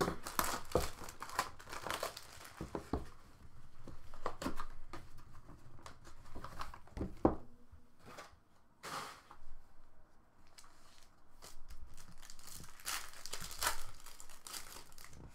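Plastic wrapping being torn and crinkled by hand as a trading-card hobby box and its pack are opened. There are irregular crackles and a few sharper snaps and knocks of handling.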